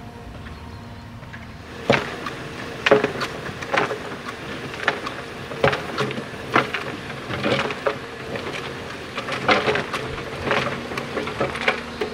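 Tracked excavator working a screening bucket full of soil and rubble: its engine runs steadily while stones clack and knock sharply in the bucket, irregularly, about one or two knocks a second starting about two seconds in.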